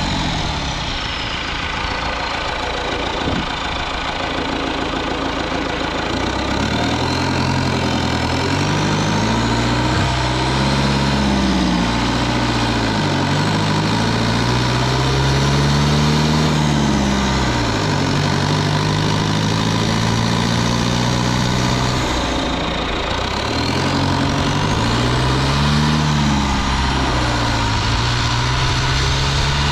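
Cummins 4BT 3.9 L turbo-diesel four-cylinder running under load while driving, picked up close to the engine. Its note climbs and drops back several times as it pulls through the gears, with a faint high whistle rising and falling above it.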